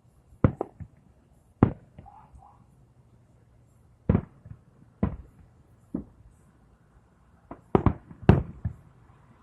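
Fireworks going off in a series of sharp bangs at uneven intervals. Some come singly and some in quick clusters of two or three, with the loudest cluster near the end.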